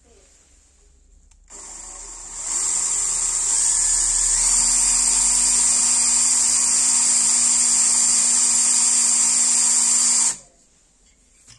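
Cordless drill running on the metal rail of an amplifier chassis. It starts softly, comes up to full speed about a second later, runs steadily for about eight seconds and stops abruptly.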